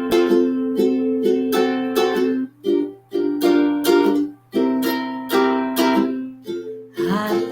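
Solo ukulele strumming chords as an instrumental introduction, with brief breaks between phrases about two and a half and four and a half seconds in.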